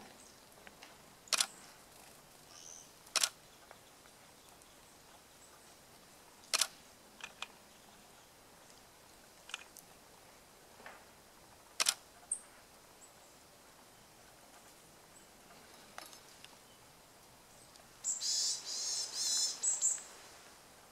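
Varied tit giving its call notes: a dense run of high, harsh calls for about two seconds near the end. Several scattered sharp ticks come before it.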